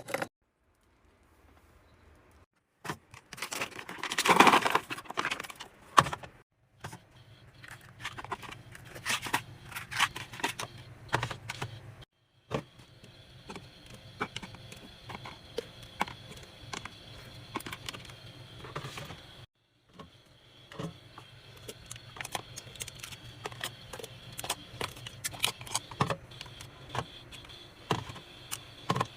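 Clicks, taps and clatter of drink containers and packaged snacks being handled and set down while a mini fridge is stocked, in several short clips with abrupt cuts between them. Some clips carry a faint steady hum.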